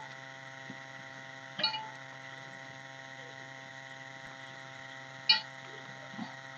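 Hand mixing boiled rice on a stainless steel plate, with two short taps against the steel about a second and a half in and again near the end, over a steady electrical hum.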